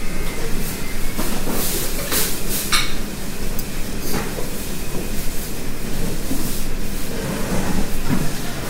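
Ramen noodles being slurped in a few short noisy bursts about two to three seconds in, over the steady background din of a ramen shop.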